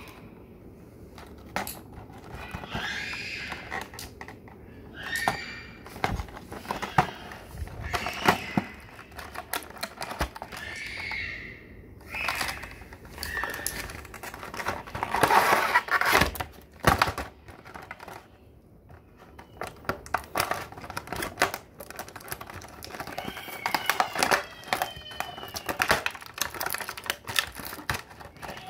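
Cardboard box and clear plastic packaging being handled: irregular clicks, taps and crinkling as the box is tipped, its inner tray slid out and the plastic bag holding the figure is handled, with a few short squeaks of plastic rubbing.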